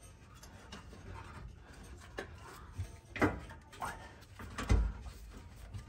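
Scattered metallic clunks and scrapes as a compressed rear coil spring, clamped in spring compressors, is worked by hand into its seat under the car. There are about four sharp knocks, and the heaviest low thud comes about three quarters of the way through.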